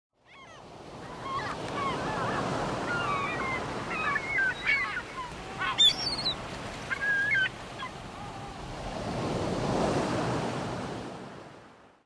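Surf washing on a shore, swelling and easing, with birds giving many short rising and falling cries over it for the first seven seconds or so. The sound fades in at the start and fades out near the end.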